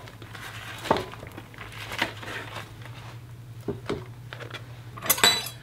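Knife scraping and tapping as chunks of softened butter are chipped off the stick into a glass bowl of flour, with the butter's paper wrapper crinkling. A short clatter about five seconds in.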